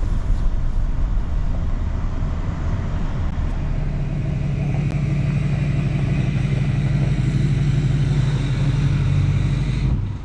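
A motor vehicle's engine running steadily, a low hum that settles into a stronger, even tone about four seconds in and cuts off sharply near the end.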